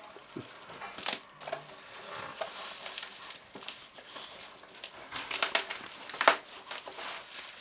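Plastic bubble-wrap packaging being handled and pulled open, crinkling and crackling irregularly, with sharper crackles about a second in and a louder one about six seconds in.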